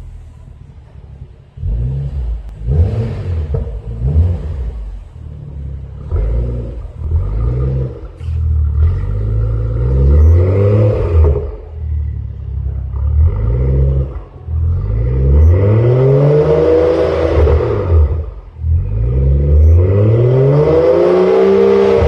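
BMW F10 535i's turbocharged straight-six, breathing through an Armytrix valvetronic exhaust, revved while parked. It idles quietly at first, then gives short throttle blips from about two seconds in, building to longer revs that rise and fall; the last two are the highest and loudest.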